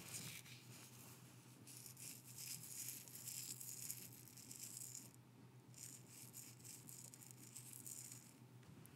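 Soft scratchy rustling close to the microphone, like fingers stroking through hair, in two long spells with a short pause between.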